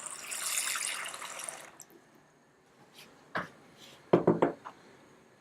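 Cold water running from a kitchen tap into a bowl, shut off about a second and a half in, followed by a few light knocks.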